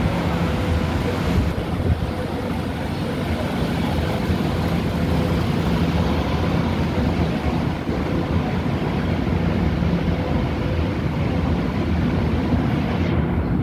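Steady rumbling hum of an underground railway platform: machinery drone with faint steady low tones under a constant wash of noise.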